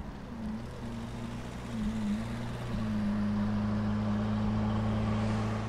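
Lamborghini Aventador's V12 engine through a Capristo cat-less straight-pipe exhaust, running at low revs as the car rolls up and then holding a steady low drone at idle. It grows louder about two to three seconds in.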